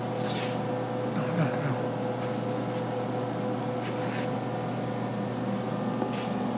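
Steady machine hum from a running industrial ultrasonic cleaning line, with a few fixed tones. A handful of brief rustles or footsteps sound over it.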